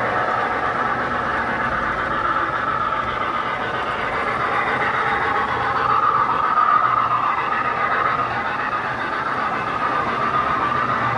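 O-gauge three-rail model freight train running past on tubular track: a steady rolling whir of wheels and motor, loudest about six seconds in as the locomotive and cars go by.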